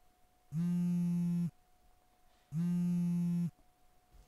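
A low, buzzy electronic tone pulsing on and off, about a second on and a second off, sounding twice.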